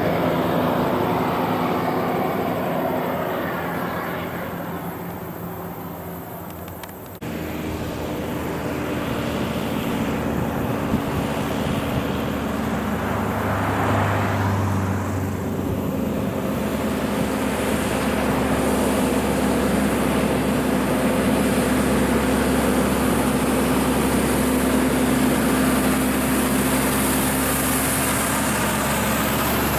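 Heavy diesel trucks working up a grade: engine drone fading as the trucks pull away. Then the sound cuts to a Kenworth cab-over truck and trailer at steady revs, growing louder as it comes up and passes close by.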